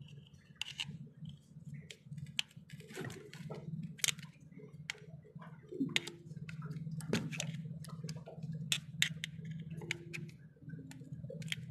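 Irregular metallic clicks, taps and scrapes of a screwdriver working in the plunger barrel bores of a Bosch in-line diesel injection pump, over a steady low hum.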